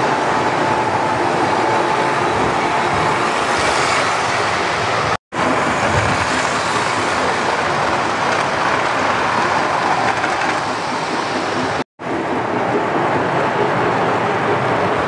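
Electric O-gauge toy trains running on three-rail track: a steady rumble and clatter of wheels and motors, broken twice by a momentary gap.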